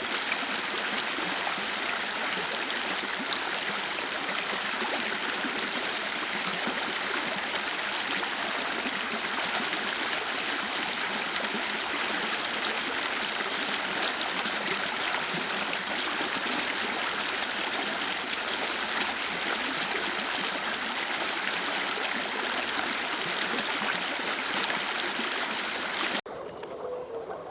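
Spring meltwater stream running and gurgling, a steady rush of flowing water that cuts off abruptly about a second before the end.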